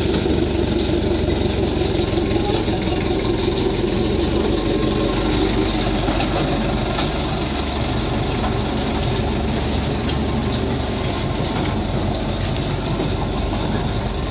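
Small Kato Works mine locomotive hauling open wooden passenger cars slowly past, a steady low running drone with the rattle and clicks of the wheels on the track. The locomotive's drone is stronger for the first six seconds or so, then the cars keep rolling by.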